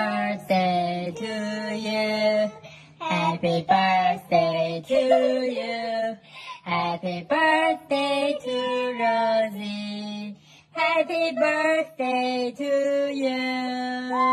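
A high voice singing a slow tune in long held notes, over a steady low tone.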